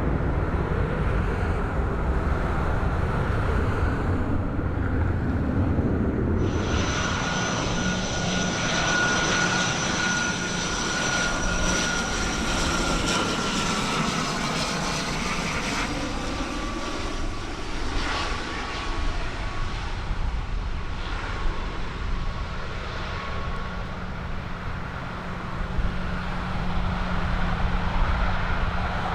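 An aircraft passing, its engine noise coming in suddenly about six seconds in. A high engine whine slides slowly down in pitch as it goes by.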